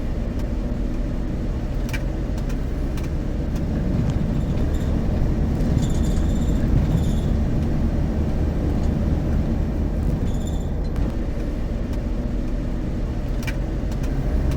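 Steady low rumble of a motor vehicle running, with a few faint high chirps about midway.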